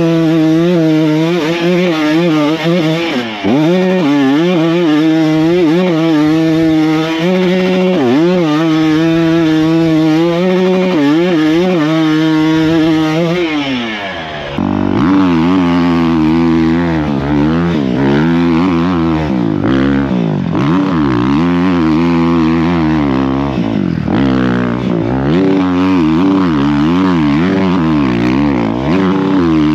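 KTM off-road motorcycle's single-cylinder engine revving hard under load on a hill climb, its pitch rising and falling with throttle and gear changes. About halfway through it gives way to a second bike with a lower, rougher note.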